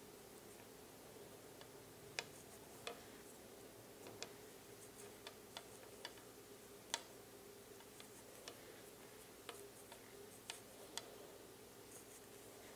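Faint, irregular clicks of wooden knitting needles tapping together as stitches are worked, about a dozen in all, over a faint steady hum.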